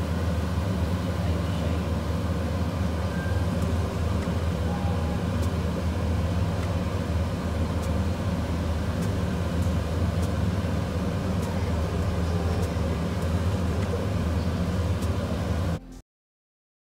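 A steady low hum runs under a wooden spatula stirring prawns in a frying pan on a gas stove, with a few faint, light clicks. The sound cuts off suddenly near the end.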